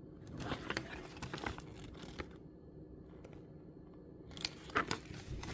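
Faint handling noise: a scatter of small clicks and crinkling, as of plastic toy packaging being handled, in the first two seconds and again near the end.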